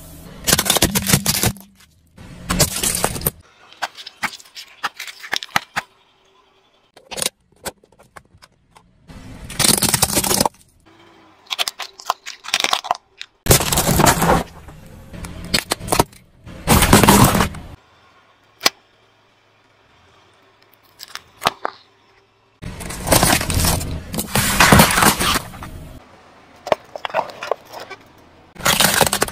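A car tyre rolling over and crushing aluminium soda cans and other small objects, heard as about eight separate bursts of crunching and crackling. Each burst lasts a second or two, with quiet gaps between.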